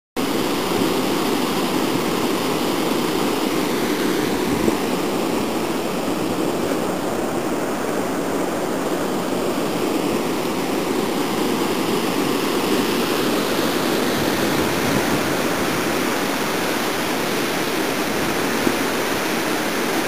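Rio Grande floodwater rushing steadily through whitewater rapids, a continuous even roar of churning water.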